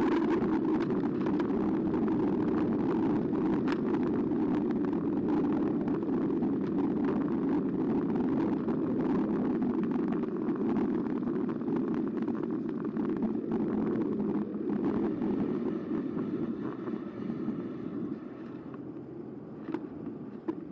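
Riding noise from a Carbo X eBike: a steady rumble from the tyres rolling over the path, with occasional small rattles. It eases off over the last few seconds.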